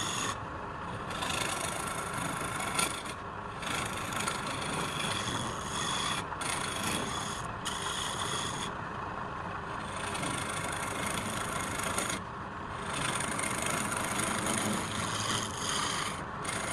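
Wood spinning on a lathe with a turning tool held against it, making a steady scraping, rasping sound with a faint hum from the lathe. The high scraping drops away for a moment several times, then comes back.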